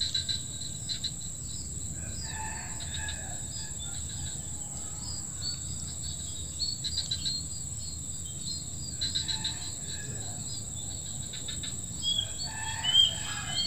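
Outdoor ambience of insects droning steadily at a high pitch, with birds calling in short scattered bursts, a cluster of chirps near the end.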